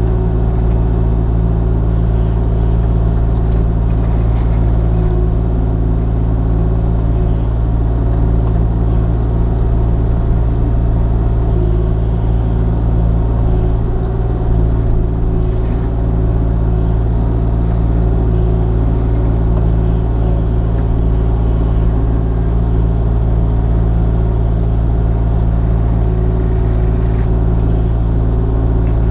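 Kubota KX040 mini excavator's diesel engine running steadily at working speed, powering a hydraulic Brush Hound FX-26 brush mulcher head that is chewing off tree suckers.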